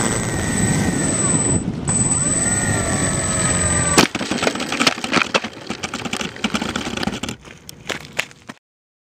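Twin electric motors and 10x6 propellers of a foam RC plane whining, heard from on board, the pitch rising and falling. About four seconds in, the plane hits the asphalt with one sharp knock and the motors stop, followed by scattered scrapes and knocks of the airframe on the pavement that die away.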